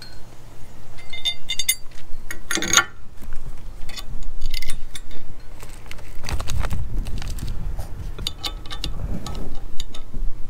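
Metal mounting bracket and screws clinking and clicking as the screws are started by hand on a truck bed rack, with several sharp ringing clinks in the first few seconds. A low rubbing rumble follows around the middle.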